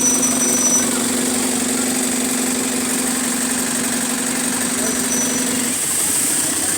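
Diesel engine of an Alexander Dennis Enviro200 MMC single-deck bus idling with a steady, rattly hum; a steady low tone in it cuts off about six seconds in.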